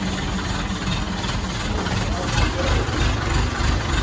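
A mobile crane's engine running steadily with a low rumble while it holds a load on its hook.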